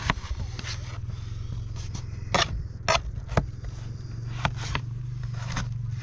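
Kitchen knife slicing raw potato on a plastic tray, the blade knocking sharply on the tray with each cut, several times at irregular spacing, over a steady low hum.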